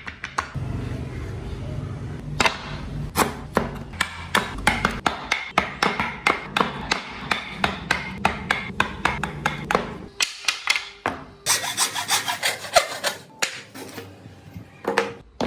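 Hand tool working wood in quick repeated strokes, about three a second, each a sharp scrape, with a denser stretch of scraping near the end.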